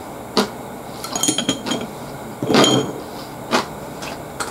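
Close-up eating sounds: chewing with short mouth clicks about once a second. Chopsticks clink against tableware a little over a second in, then clatter louder with a brief ring as they are set down past the middle.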